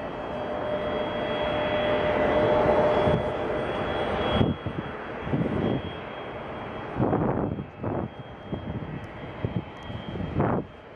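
Airliner jet engines running at an airport, a steady rush with a faint high whine that grows louder over the first few seconds and drops away suddenly about four seconds in, followed by irregular gusty bursts of noise.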